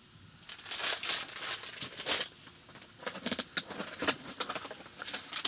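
Irregular rustling and crinkling in a series of uneven bursts, starting about half a second in.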